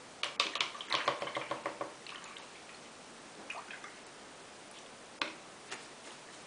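A paintbrush clinking against a water jar as it is rinsed: a quick run of light clicks lasting under two seconds, then a few single taps.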